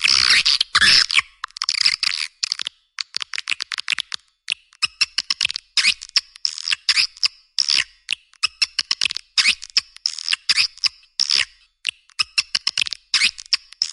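Swiftlet call-sound track: a dense burst of twittering chirps in the first second, then rapid trains of short, high chirps and clicks, the lure call played to draw swiftlets into a nest house.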